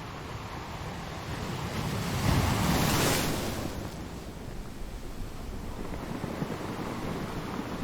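Ocean surf: a wave builds, breaks about two to three seconds in as the loudest moment, then settles back into a steady wash.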